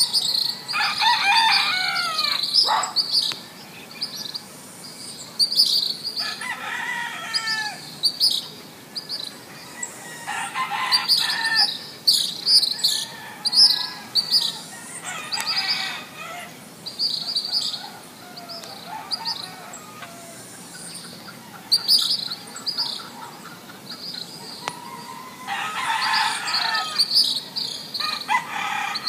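A rooster crowing several times, each crow about a second long, with small birds chirping throughout.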